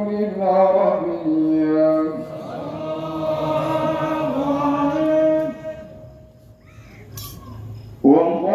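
A man chanting Arabic mawlid recitation into a microphone, in long held, melodic phrases. He breaks off about six seconds in and starts a new phrase just before the end.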